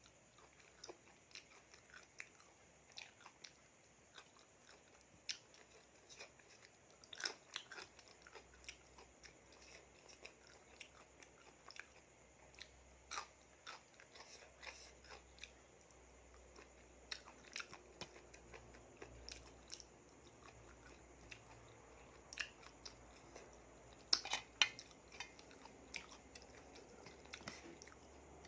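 Close-up chewing of a spicy seafood salad of salmon, shrimp and squid, with irregular short clicks from the mouth; a louder cluster of clicks comes about 24 seconds in.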